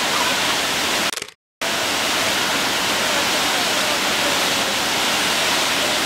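Waterfall rushing, a steady loud hiss of falling water; the sound cuts out completely for about half a second just over a second in.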